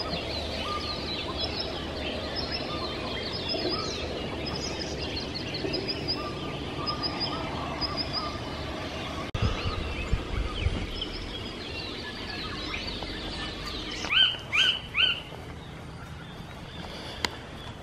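Many birds calling together in a dawn chorus, short notes repeated at several pitches over a steady background. About fourteen seconds in, three louder sweeping calls stand out, and around ten seconds in there are a few low thumps on the microphone.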